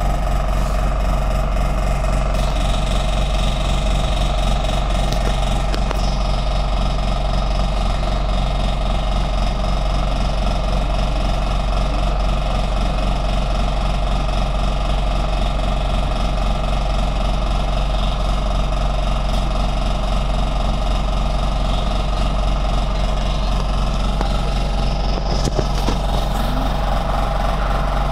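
LAZ A183D1 city bus's diesel engine idling steadily, with a constant low hum and a few fixed mid-range tones and no revving.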